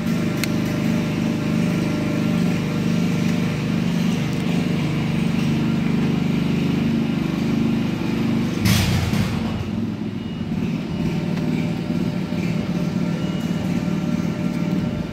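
A steady, low mechanical drone like an idling engine, with a short loud rush of noise about nine seconds in.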